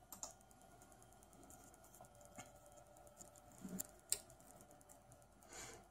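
Near silence with a few faint, scattered computer keyboard clicks over a faint steady hum.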